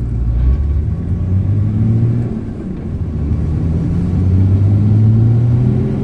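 Nissan Patrol Y60's engine pulling away and accelerating, heard inside the cabin: its pitch rises, drops at a gear change about two and a half seconds in, then rises again.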